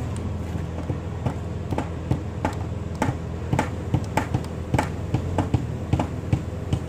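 Heavy machine's engine running with a steady low hum while it holds a concrete pile on its cable. Over it comes a string of short, sharp knocks, about three a second, from about one second in until near the end.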